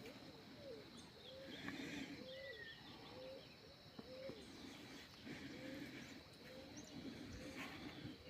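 A bird calling over and over, short low notes that bend in pitch, a little more than one a second, faint, with a thin steady high tone behind it.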